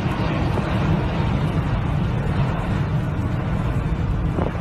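Airbus A380 airliner's four jet engines at takeoff power in a steep climb, heard from the ground as a steady, deep rumble.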